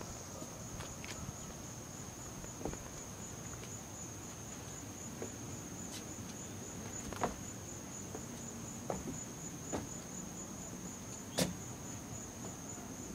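A steady, high, faintly pulsing insect trill, typical of crickets, with a few faint scattered clicks and knocks.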